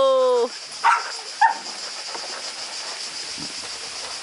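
Dog giving two short barks, about a second and a second and a half in, over a steady high hiss.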